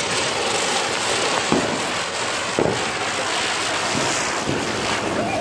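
Ground spinner firework (chakri) spinning close by with a steady, loud hiss of burning sparks and a few short pops.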